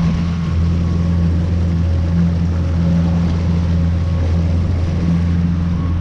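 Yamaha 60 hp outboard motor running steadily under way, a constant low drone with the rush of the boat's wake underneath.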